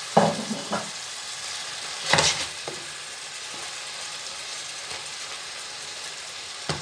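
Prawns, squid rings and mussels sizzling steadily in a stainless steel pan over high heat, stirred with a wooden spoon. A few louder knocks and scrapes of the spoon against the pan come near the start and about two seconds in.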